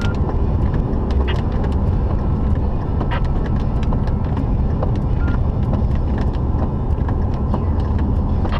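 Steady low rumble of a car's cabin on the move, with scattered faint ticks over it.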